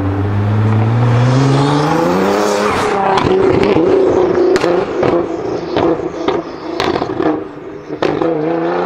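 Nissan GT-R's twin-turbo V6 accelerating hard, its pitch rising over the first couple of seconds, then running at a steadier note while a string of sharp pops and cracks comes from the exhaust; about eight seconds in the revs climb again.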